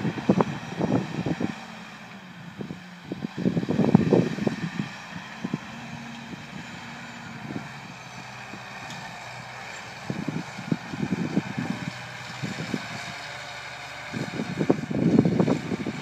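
Massey Ferguson tractor engine running steadily as the tractor pulls an implement across a ploughed field. Wind buffets the microphone in irregular gusts, loudest about four seconds in and near the end.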